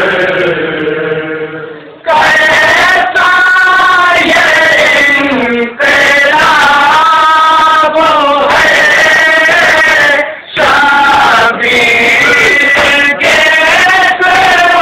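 Men's voices chanting a nauha, the Shia lament, loudly in chorus: long sung phrases broken by short breaks about two, six and ten seconds in.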